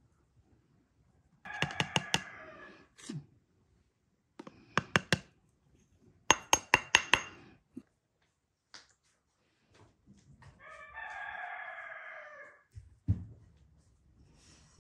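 Metal spoon tapping against a glass in three quick runs of sharp clinks, some ringing on, as flour is spooned out; about ten seconds in a rooster crows once for about two seconds, and a low thump follows near the end.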